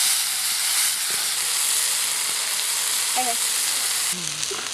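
Hamburger patties sizzling in a cast-iron skillet over a wood fire, a steady hiss of frying fat. The sizzle drops off suddenly near the end.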